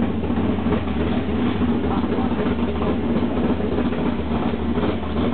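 Small-block V8 on an engine stand idling steadily, a continuous even rumble.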